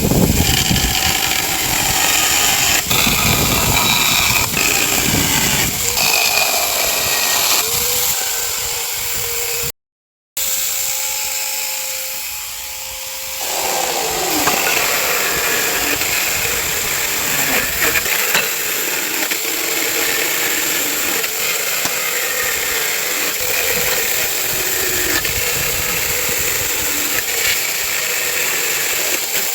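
Chainsaw cutting through wooden pallet boards, running loud and continuously. About ten seconds in the sound cuts out completely for a moment, then the saw runs lighter and steadier for a few seconds before it bites into the wood again.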